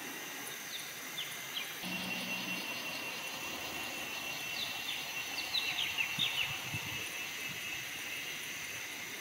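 Forest ambience: a steady high insect drone, with birds giving short falling chirps that cluster and grow loudest a few seconds in. A brief low hum sounds about two seconds in.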